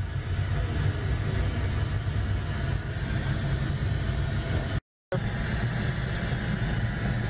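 Steady low rumble with a hiss above it: the simulated engine and airflow background noise of a Boeing 737NG flight simulator cockpit on approach. The sound cuts out completely for a moment about five seconds in.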